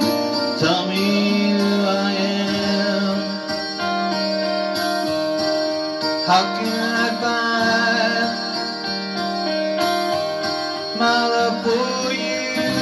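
Live music played on an electronic keyboard: sustained chords under a moving melody line, with a full, band-like sound.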